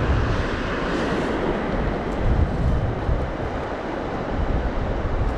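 Wind buffeting the microphone in a steady, gusting rumble over the continuous wash of sea surf.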